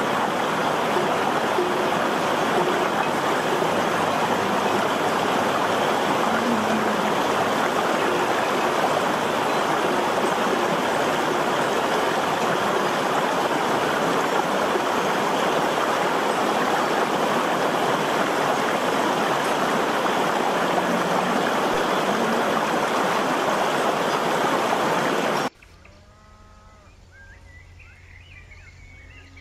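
Shallow mountain stream rushing steadily over rocks, with faint low lowing of cattle now and then. About 25 seconds in the sound cuts abruptly to a much quieter scene of short, wavering animal calls over a low hum.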